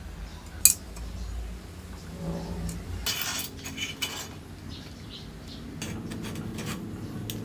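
Metal clicks and clinks of bicycle parts worked by hand: a hex key on the handlebar stem's clamp bolts gives one sharp click a little under a second in. A burst of rattling and scraping follows about three to four seconds in as a drop handlebar with brake levers and cables is handled, and light scattered clicks come near the end.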